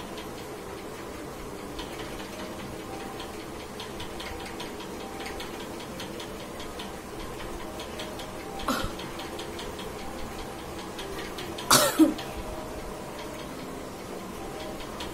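A woman sneezing once, loudly, about twelve seconds in, brought on by tickling her nose with a bobby pin; a shorter, quieter burst comes about three seconds earlier. A steady faint ticking runs underneath.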